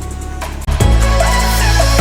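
Background music: steady low bass notes, joined about two-thirds of a second in by a louder layer with a melody.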